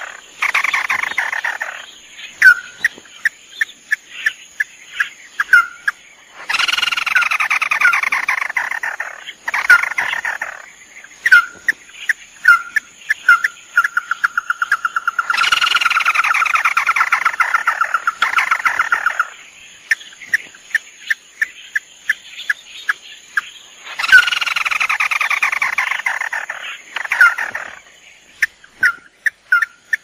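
Crakes (tikusan mata merah, male and female) calling: long rattling trills that fall in pitch, three of them about three seconds each. Between the trills come short sharp call notes and a quick run of pulsed notes on one pitch.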